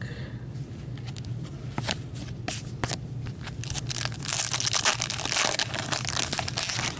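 Foil wrapper of a 2014-15 Upper Deck Masterpieces hockey card pack being torn open and crinkled by hand. There are a few light clicks of card handling first, and the crinkling takes over about three and a half seconds in.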